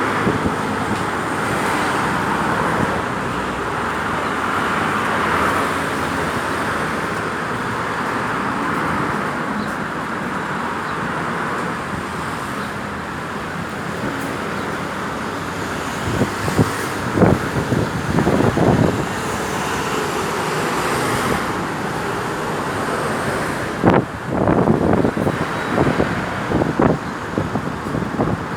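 Steady road traffic noise with no siren, broken by two clusters of short, louder thumps about sixteen seconds in and again about twenty-four seconds in.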